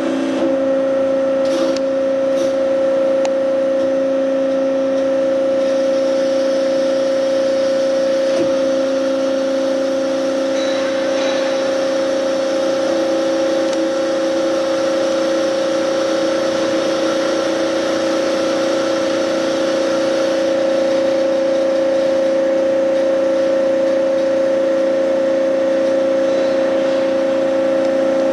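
Hyd Mech H-40 horizontal bandsaw running under power: a steady machine hum with a constant whine, and a few faint clicks in the first few seconds.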